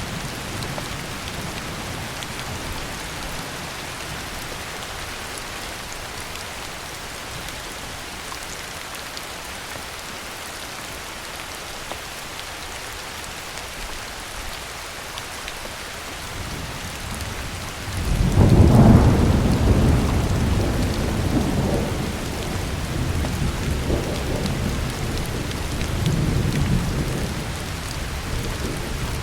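Heavy rain falling steadily with a hiss. About two-thirds of the way through, a deep roll of thunder builds and rumbles on in waves, louder than the rain.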